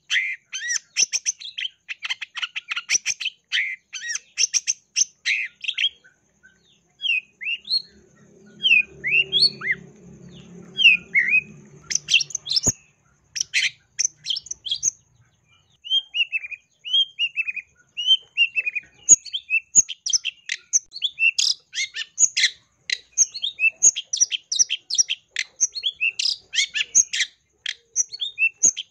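Caged long-tailed shrike (cendet) singing a fast, scratchy chattering song of short notes, broken in the middle by a spell of separate slurred whistles before the rapid chatter returns. A low hum sits beneath the song for a few seconds about a third of the way in.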